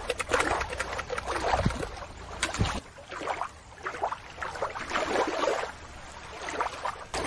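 Shallow water washing and splashing at the shore, with a low rumble under it. A little under three seconds in it cuts suddenly to a quieter, softer water sound with no rumble.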